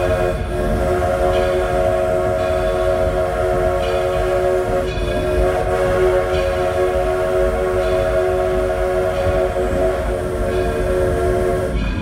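A steam locomotive's whistle blowing one long blast, a chord of several notes held steady with two very short breaks, then cutting off sharply. The low rumble of the moving train runs underneath.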